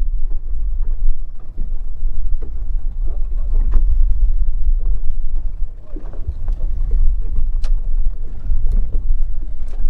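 Steady low rumble aboard a small open fishing boat at sea, with faint voices and a few light knocks over it.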